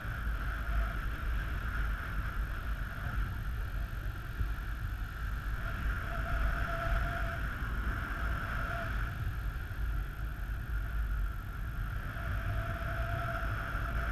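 Wind rushing over the camera microphone in paraglider flight: a steady low rumble with a steady higher hiss above it.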